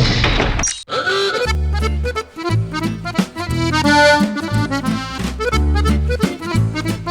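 A short noisy crash that cuts off suddenly just under a second in, then a lively accordion tune over a regular pattern of bass notes.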